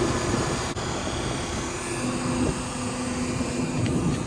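Excavator's diesel engine and hydraulics running steadily, with a faint whine that shifts lower about halfway through.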